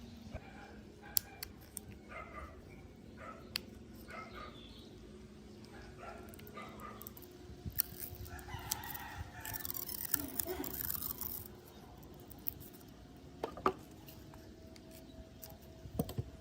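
A drawn-out animal call, about three seconds long, around the middle, among scattered sharp clicks and small taps.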